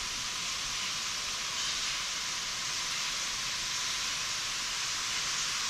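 Steady, even hiss of rough sea surf along the beach, with no single wave breaks standing out.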